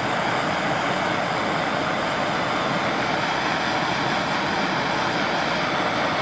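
Handheld gas torch burning with a steady hiss while it heats a gel-filled heat-shrink wire connector to shrink it.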